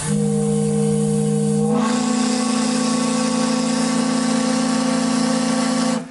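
Steamboat's chime steam whistle blowing one long, loud blast of about six seconds: a chord of several notes over steam hiss. The chord shifts in pitch a little under two seconds in, then cuts off suddenly.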